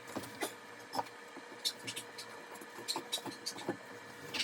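Light, irregular clicks and knocks, about one or two a second, from hands working at the base of a toilet being reinstalled over its flange. A faint steady hum sits underneath.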